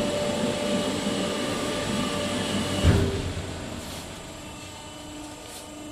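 EPS foam pattern embossing press running as it opens, with a steady mechanical whine that stops with a clunk about three seconds in, leaving a quieter machine hum.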